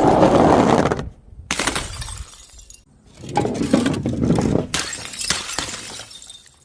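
Glass bottles shattering in several separate crashes, each trailing off into the tinkle of falling shards, with abrupt cuts between them.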